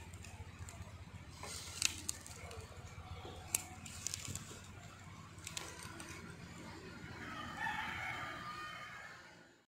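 A rooster crowing once in the background near the end, over a steady low hum, with a few sharp clicks earlier on.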